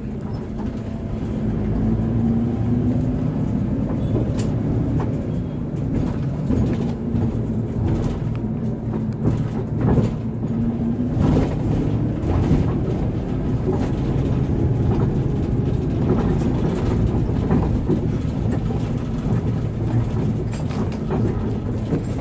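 Hino RK8 coach's diesel engine running while the bus drives, a steady low drone whose pitch rises and falls as the engine speeds up and slows. A few short knocks or rattles are heard over it.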